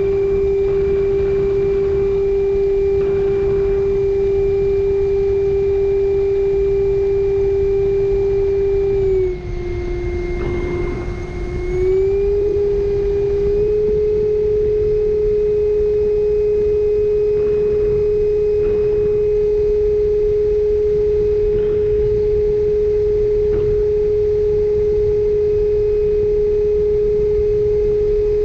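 A 64 mm electric ducted fan on a 4S battery running with a steady high whine. About nine seconds in the throttle eases, the pitch drops and the sound quietens, and some three seconds later it climbs back to a slightly higher steady whine. A low rushing noise of air lies underneath.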